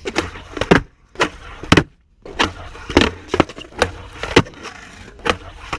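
Skateboard rolling on concrete with a steady low rumble of the wheels, broken by a series of sharp clacks as the board's tail pops and the wheels land.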